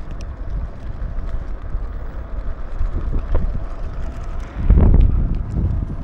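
Wind buffeting the microphone on a moving motorbike: a steady low rumble, with a louder gust about five seconds in.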